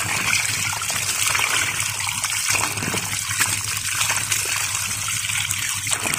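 Water gushing steadily from a white PVC outlet pipe and splashing onto wet, muddy ground. The water is pumped up by a 0.5 HP submersible pump from a 60 m bored well.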